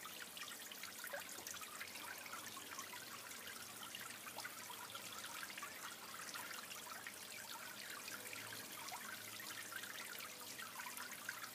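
Steady trickle of water in a small raised garden pond, a fine, continuous splashing.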